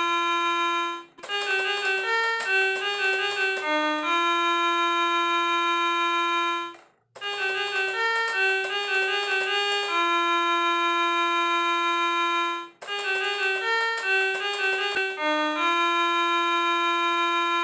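Electronic keyboard playing a short melody: a run of quick notes ending on a long held note that doesn't fade, played three times with a brief break before each repeat.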